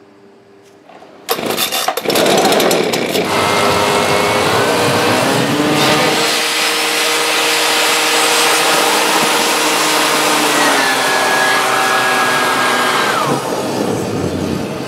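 Homemade turbojet made from a small turbocharger being started: a quick run of clicks, then a loud rushing with whines that climb in pitch as the turbo spins up on forced air and fuel. Near the end a high whine falls away.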